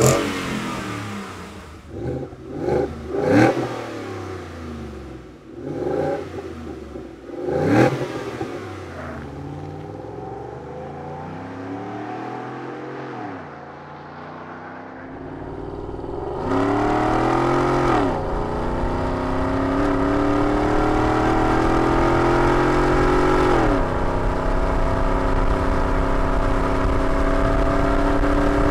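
Ford F-150 5.0-litre V8 through a Corsa 3-inch Sport side-exit cat-back exhaust with twin polished tips: several quick revs in the first few seconds, a quieter stretch, then a long hard acceleration heard at the tips, the pitch climbing and dropping back at two upshifts.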